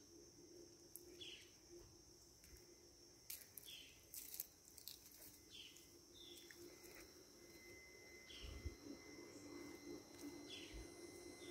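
Faint ambience: a bird gives short falling chirps about once a second, over a steady high insect drone, with a few faint clicks.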